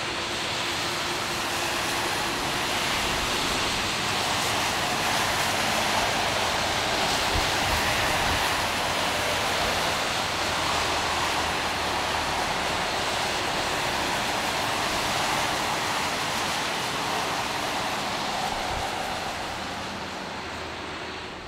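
Boeing 767-300F freighter's jet engines making a steady rushing noise as it rolls out along the wet runway after landing, fading near the end.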